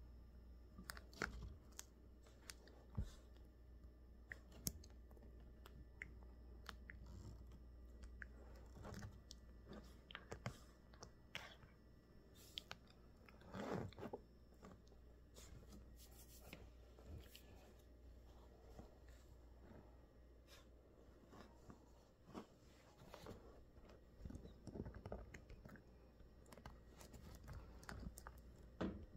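Australian Labradoodle puppy chewing and biting a rubber ball toy with rope tugs: faint, irregular gnawing clicks and crunches, with a louder flurry about fourteen seconds in.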